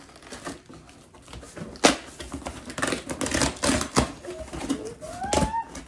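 Cardboard shipping box being opened by hand: packing tape tearing and cardboard flaps pulled back, with crinkling rustle. A sharp snap comes about two seconds in, a burst of rustling follows, and there are further clicks and knocks near the end.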